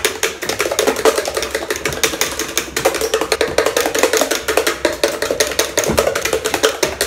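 Three kitchen knives held together chopping and churning chopped fruit by hand inside a plastic blender jug: a rapid, continuous clatter of blades knocking against the jug, many knocks a second.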